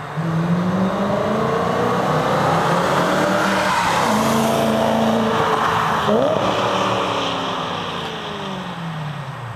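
BMW E93 M3's 4.0-litre V8 through an Eisenmann Race exhaust, accelerating past at close range. The engine note climbs as the car approaches, then falls in pitch and fades as it drives away in the last few seconds.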